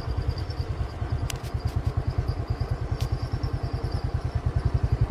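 Small motorcycle engine running at low speed, a steady rapid low putter. A few light clicks come about a second and a half in and again at three seconds.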